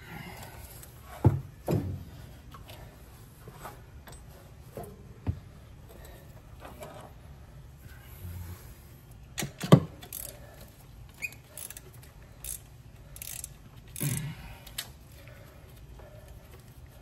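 Scattered clunks and metal knocks from working an exhaust manifold loose and lowering it off the engine. The two sharpest come about a second in and just before the ten-second mark, with lighter knocks and rattles in between.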